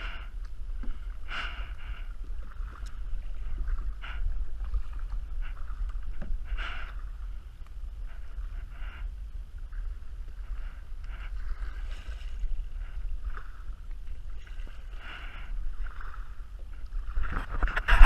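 Kayak paddle strokes, soft irregular swishes of the blade dipping and pulling through the water about every second or two, over a low wind rumble on the microphone.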